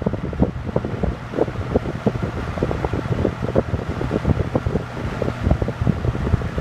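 1976 Toastmaster Model 7327 Slim Line 20-inch box fan running on its low speed, which runs about as fast as a normal high: a steady low motor hum and rushing air, with the airflow gusting unevenly on the microphone.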